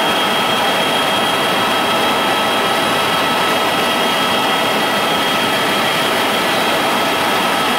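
Loud, steady engine drone: an even rushing noise with a few steady high whining tones over it.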